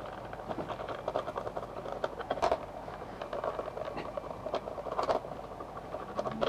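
Phillips screwdriver undoing the small screws of a plastic radio-transmitter case: a dense run of small clicks and scratches of the tip and screw turning, with sharper clicks about two and a half and five seconds in.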